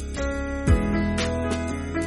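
Gentle background music: held notes over a steady beat, with a deep thump about two-thirds of a second in.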